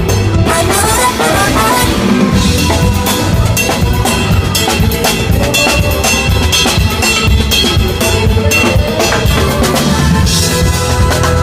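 Live band playing at a sound check, a drum kit keeping a steady beat over bass and other instruments.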